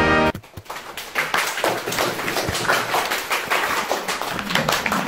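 Orchestral music cuts off, then a group of people applaud, the clapping building up about a second in and continuing.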